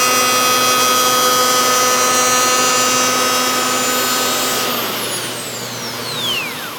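Corded electric hand power planer running at full speed, planing a back bevel along the edge of a wooden window stool: a steady whine over the hiss of the cut. Near the end the planer is switched off and its cutter head spins down with a steeply falling whine.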